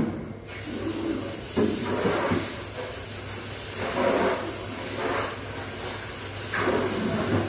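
Water spraying from a hose while a meat bandsaw is washed down: an uneven hiss and splash that swells and fades several times, over a steady low hum. A brief sharp knock comes right at the start.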